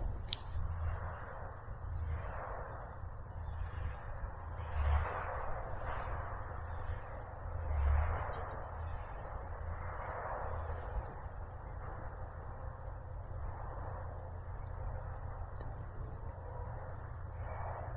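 Small birds giving high, thin calls throughout, over a steady low rumble from distant forestry machinery working in the woods.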